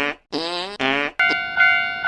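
A comic pitched sound effect with a sliding, blatting tone, then just past halfway a Japanese level-crossing warning bell starts, its electronic ding repeating about twice a second.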